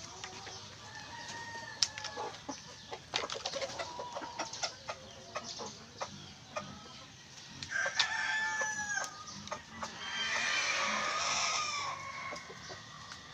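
A flock of chickens clucking and calling as they feed at a trough, with many quick clicks of beaks pecking at the feed. A longer, harsher call comes about ten seconds in.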